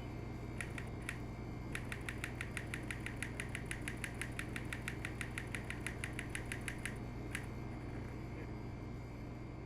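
Manual typewriter keys struck in a fast, even run of clicks, about eight a second for some five seconds, after a few separate strokes, with one last stroke near the end. A steady low hum lies underneath.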